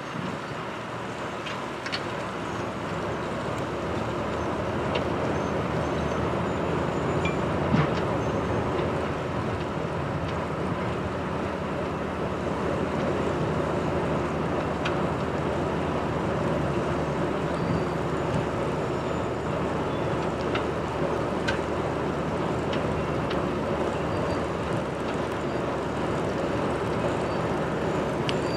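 Snow-clearing train running steadily, its machinery noise rising a little over the first few seconds, with scattered sharp clicks.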